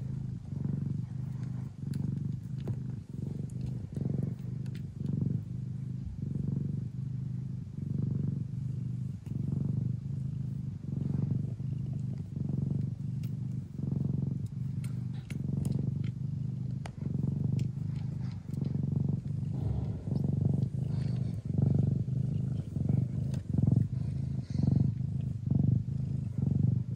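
Thai (traditional Siamese) mother cat purring hard while nursing her newborn kittens. It is a low, steady purr that swells and dips about once a second with her breathing.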